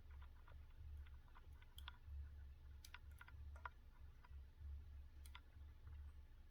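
Irregular small clicks of a hook pick working the sidebar pins of a BiLock NG lock core under tension, with a few sharper clicks about two, three and five seconds in. A faint low hum runs underneath.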